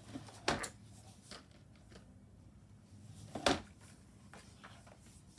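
Plastic fidget toys being handled and moved around, with light rustling and two louder, short clatters about three seconds apart.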